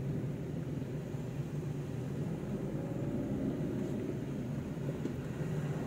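Steady drone of engine and road noise inside the cab of a moving vehicle, with an even low hum throughout.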